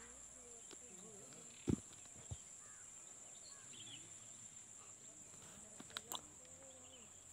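Steady, high-pitched insect drone in open country, with faint distant voices murmuring. Two sharp knocks come about two seconds in and a few clicks around six seconds.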